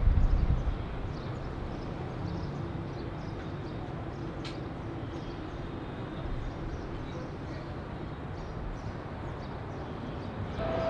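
Distant jet airliner landing and rolling out on the runway: a steady rumbling roar, with a brief louder low rumble right at the start. Faint bird chirps sound over it.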